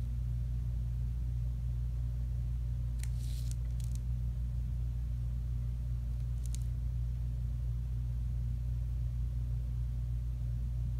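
A steady low hum throughout, with a few short, faint scratches of a Sharpie pen tip drawing small loops on paper about three seconds in, just before four seconds and about six and a half seconds in.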